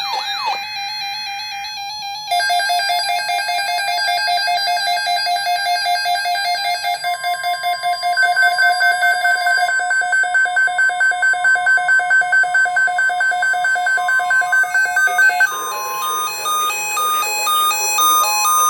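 Electronic synthesized tones, loud and pulsing rapidly, with a higher tone joining about seven seconds in and a quick stepping up-and-down melody in the last few seconds before it cuts off.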